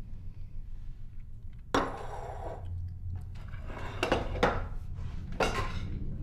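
Cutlery and dishes clinking at a dinner table: one sharp, ringing clink a little under two seconds in, then several lighter clinks near the end, over a low steady hum.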